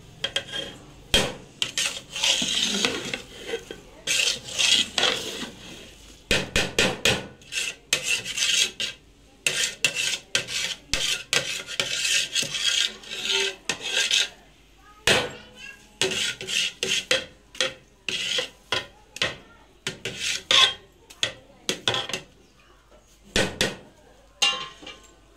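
A ladle scraping and knocking against the sides and bottom of a large aluminium cooking pot as a big batch of biryani rice is turned over and mixed, in irregular strokes with sharp clinks. The strokes come thick and fast at first and thin out near the end as the rice is levelled.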